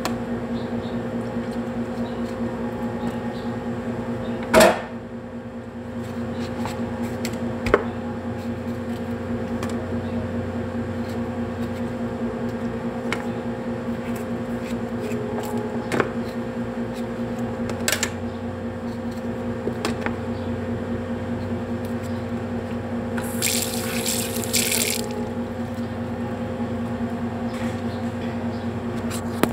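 Kitchen tap running into a sink while tomatoes are rinsed: a steady rush of water with a low hum under it. A sharp knock about four and a half seconds in is the loudest sound, a few lighter clicks follow, and a short hiss comes late on.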